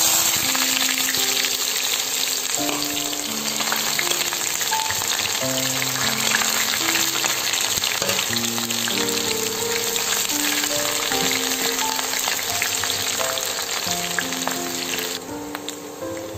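Chopped red onion frying in hot oil, a loud, dense sizzle that eases off near the end. Soft background music with slow held notes plays underneath.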